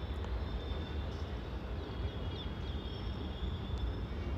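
Steady low background rumble and hiss, with a few faint short high chirps.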